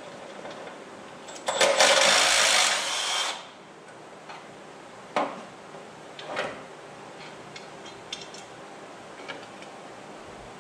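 Cordless impact wrench run against a bolt on a truck frame: one long burst of about two seconds, starting about a second and a half in, then two short bursts a few seconds later.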